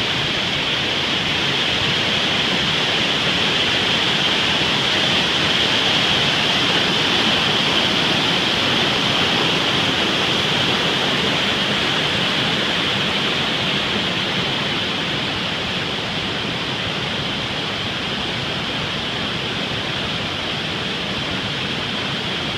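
Waterfall and creek rushing steadily: a constant, even hiss of falling water.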